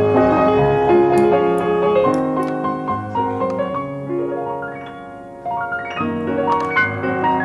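Piano music, several notes sounding together in a changing melody; it grows quieter towards about five seconds in, then comes back in abruptly.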